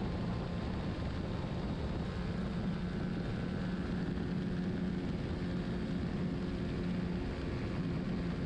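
Racing motorcycle engine running hard at a steady high pitch, with a dense rush of wind and road noise.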